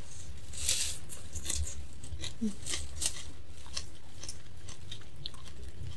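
Close-up chewing of a mouthful of stir-fried leafy greens and rice, eaten by hand: irregular small clicks of the mouth, a little louder about a second in and again about three seconds in.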